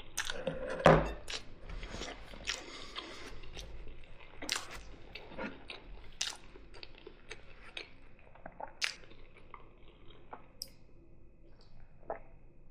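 Close-miked chewing of food: irregular wet smacking and clicking mouth sounds. There is one louder knock about a second in.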